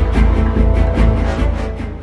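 Intro music with a heavy, driving beat, fading out near the end.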